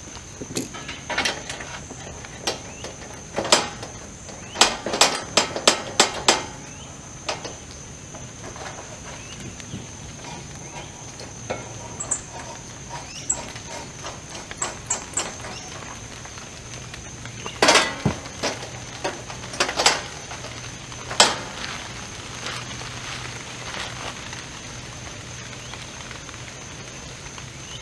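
Metal clicks and knocks as a propane regulator tube is fitted into a two-burner camp stove and a small propane cylinder is handled and screwed onto it. The clicks are scattered, with a quick run of them about five seconds in and a few more sharp knocks later.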